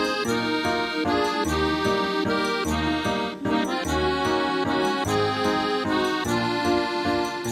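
Instrumental music: sustained chords over a bass line that moves in regular steps, with no voice.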